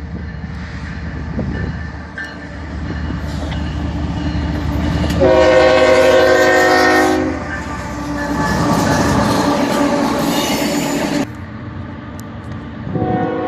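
Locomotive's Nathan K5HL five-chime air horn sounding a chord in long blasts. It is faint at first, loudest about five seconds in, keeps sounding until it cuts off suddenly about eleven seconds in, and starts again near the end, over the rumble and wheel clatter of the passing train.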